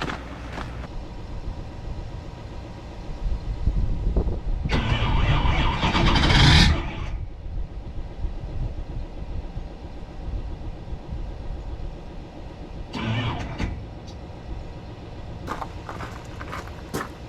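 Starter of a Duramax diesel truck engine cranking for about two seconds and cutting off without the engine catching, then a shorter burst later. This is a cold-soaked engine failing to start in extreme cold, which the owner puts down to weak batteries.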